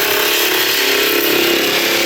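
Electric drum floor sander running steadily at full speed.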